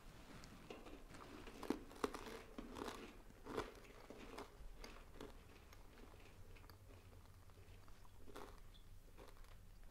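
Faint crunching and chewing of a small piece of communion bread, a run of crisp bites over the first few seconds and one more near the end.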